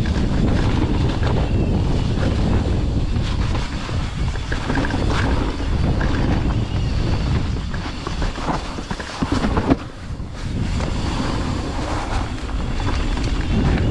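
Wind rushing over the helmet camera's microphone while a mountain bike rolls fast down a dirt trail, tyres rumbling with scattered knocks and rattles over bumps. A sharp knock comes near the ten-second mark, followed by a moment that is briefly quieter.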